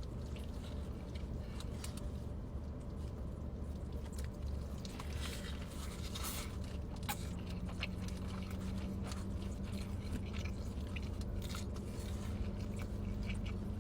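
Close-up chewing and biting of a bacon burger: wet mouth sounds with scattered crunches and crackles, over a steady low hum.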